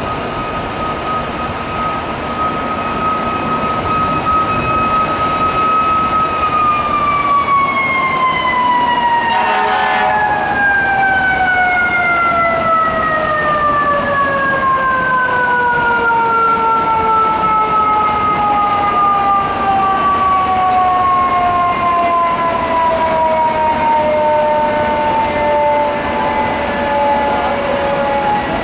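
A fire truck's mechanical siren held at a steady pitch for about six seconds, then slowly winding down, its pitch falling smoothly and continuously as the rotor coasts to a stop.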